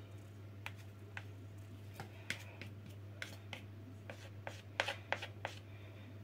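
A utensil clicking and scraping against a plastic mixing bowl of chocolate cake batter: irregular light taps, a dozen or so, most closely bunched about four to five seconds in, over a steady low hum.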